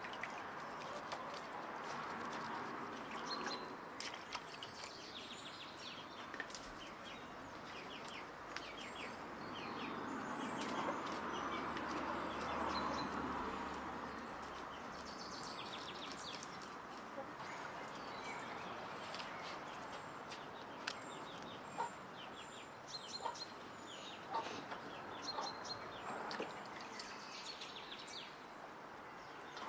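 Domestic chickens clucking, with small birds chirping high over them. Toward the end come light water splashes and drips as leafy greens are washed by hand in a copper bowl.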